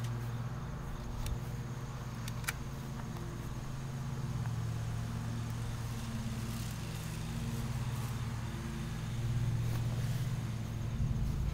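A steady low engine drone that wavers slightly in pitch, with a single sharp click about two and a half seconds in.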